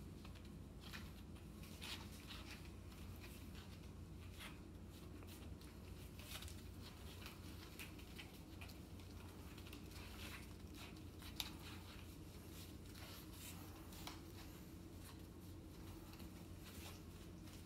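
Faint, scattered scratching and pattering of a litter of young English Springer Spaniel puppies' paws and claws shuffling on a foam play mat and wood floor, over a low steady room hum, with one sharper tick about eleven seconds in.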